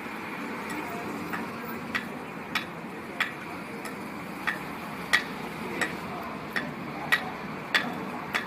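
Steady street-traffic noise with a sharp, regular ticking over it, about three ticks every two seconds.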